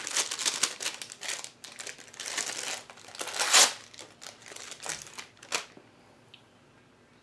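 Crinkling and rustling of a soap sample's wrapping being opened by hand, loudest about three and a half seconds in, stopping at about six seconds.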